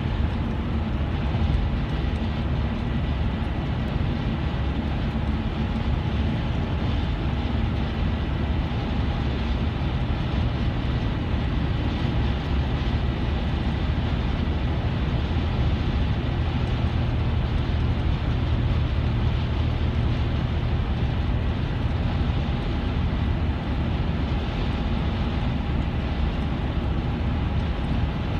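Steady road noise inside a moving car's cabin at highway speed, a constant low rumble of tyres and engine that does not change.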